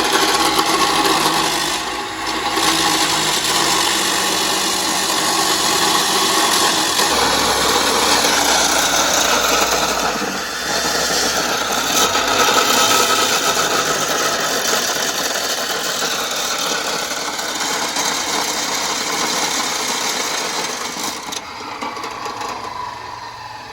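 A power tool working steel, running hard and loud with brief dips about two seconds and ten seconds in, then stopping near the end.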